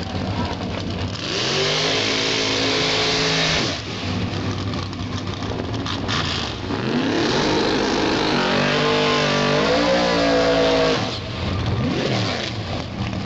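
Drag-racing vehicle engines revving and accelerating, the pitch climbing, holding and dropping back several times, with a loud hissing rush in the first few seconds.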